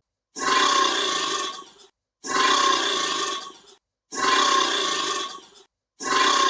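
Alligator roar or growl sound effect, the same call repeated about every two seconds, each lasting about a second and a half with dead silence between: a looped clip. The fourth call starts near the end.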